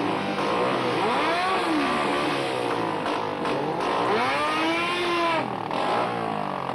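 Sport-bike engine revved hard again and again, its pitch climbing and falling back in blips about once a second. At times it overlaps a second engine revving.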